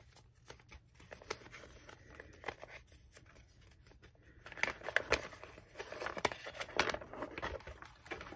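Paper crinkling and rustling as a folded mini poster is opened and unfolded by hand: scattered small crackles at first, growing denser and louder about halfway through.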